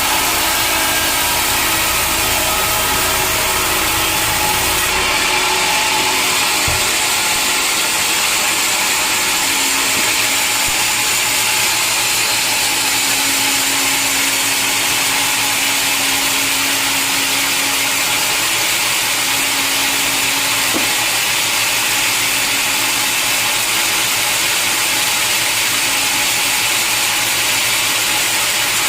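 Sawmill machinery running steadily and loudly, the kind of noise made by a log bandsaw mill at work. A deep rumble under it stops about five seconds in.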